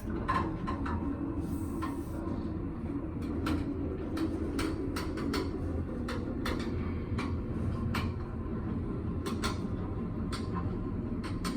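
A steady low mechanical rumble that starts suddenly, with many irregular light clicks and taps over it.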